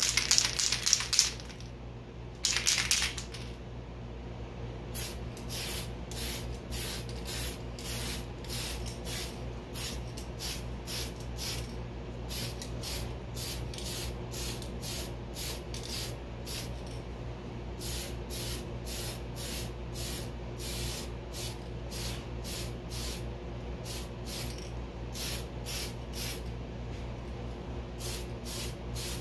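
Aerosol spray can of Tamiya TS-38 gunmetal lacquer spraying in short hissing bursts, about two or three a second in runs with brief pauses, as light passes go onto a helmet. Two louder bursts of noise come in the first three seconds.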